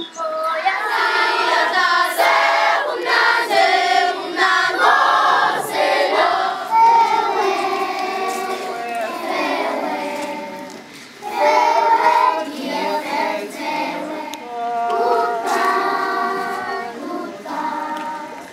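A group of schoolchildren singing together as a choir, with a short break about eleven seconds in before the singing picks up again.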